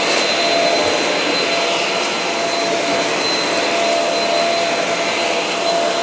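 Shark Navigator Lift-Away upright vacuum running on a bare hardwood floor in its bare-floor setting, brush roll not turning: steady suction noise with a thin high whistle from the motor.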